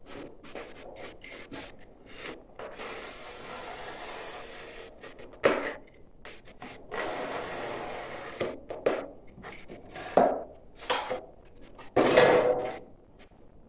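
Pieces of ceramic fiber board being worked and fitted by hand: long scraping, rubbing strokes broken by sharp knocks, one about halfway and a cluster near the end.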